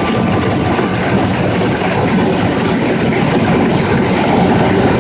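Komori Lithrone 28 sheetfed offset printing press running, a loud, steady mechanical clatter with a fast regular beat.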